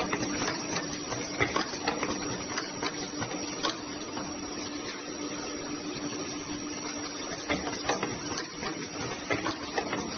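N95 mask-making machine running: a steady hum with frequent irregular clicks and knocks from its mechanism.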